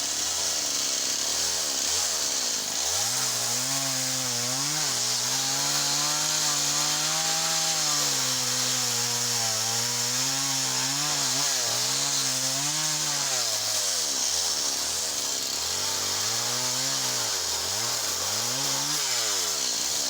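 Small chainsaw cutting softwood, its engine note sagging and recovering over and over as the chain takes the load in the cut.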